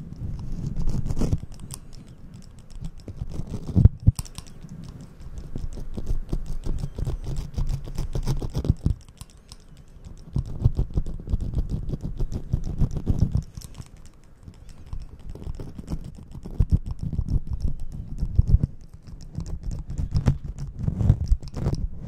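Hand hair clippers clicking in quick runs of snips, worked right against the microphone's fur cover so the clicks come with a low rustling rumble. The runs last a few seconds each, with short pauses between them.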